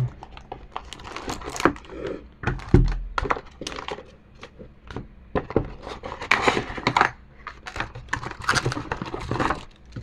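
Packaging being unpacked by hand: irregular crinkling and rustling with scattered light knocks, and one dull thump about three seconds in.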